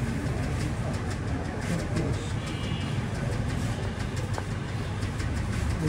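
Steady low engine-like rumble, as of a motor vehicle running, with faint scattered light clicks.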